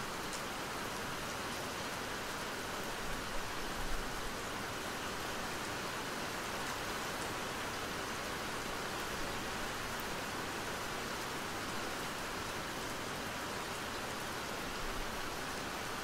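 Steady rain falling: an even hiss of many drops, with a few faint single drop ticks.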